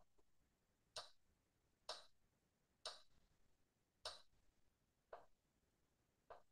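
Faint move sound effects from an animated chess board: short clicks about once a second, six in all, the last two fainter, as the game replay steps through its moves.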